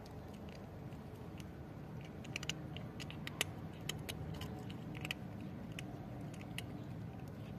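Cats crunching dry kibble: irregular crisp crunches and clicks, busiest in the middle, over a steady low background rumble.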